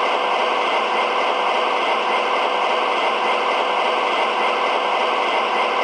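Recorded diesel engine idle played through the onboard speaker of an MTH Premier O scale Dash 8 model locomotive's Proto Sound 3.0 system: a steady running sound, thin, with almost no deep bass.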